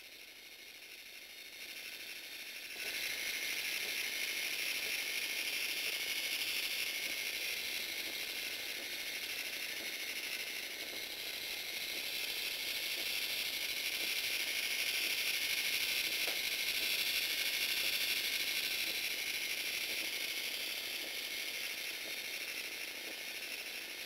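LEGO Mindstorms NXT servo motor driving a LEGO Technic gear train, giving a steady, high gear whir. It grows louder over the first few seconds, then runs evenly.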